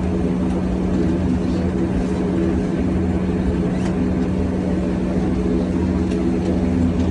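Steady engine and air noise heard inside an airliner cabin: a constant drone with a low hum running under it.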